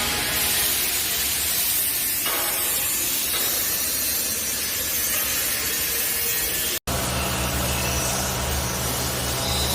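Steady machine noise with a strong hiss. After a sudden break about seven seconds in, a steady low hum comes in under it.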